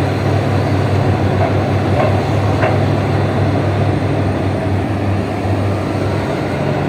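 Heavy diesel mining machinery running with a steady, loud low engine drone, with a couple of faint ticks about two seconds in.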